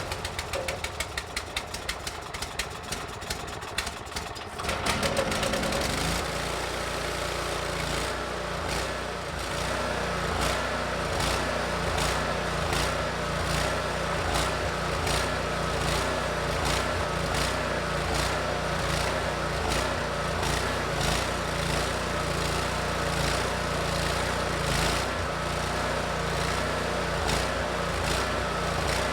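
Gasoline engine of a hot-water pressure washer skid running after a test start: a fast, even patter for the first few seconds, then it picks up about four to five seconds in and settles into a steady run with a faint tick about twice a second. The pump is making low pressure, which the owner puts down to a bad unloader bypassing too much water.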